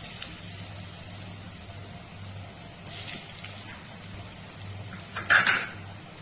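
Spice-coated potato fingers frying in hot coconut oil in a clay pot, a steady sizzle with louder swells about three seconds in and twice near the end.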